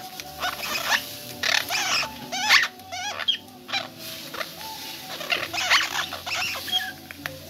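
Orange-fronted parakeets crunching and crackling a tortilla chip with their beaks, in irregular bites.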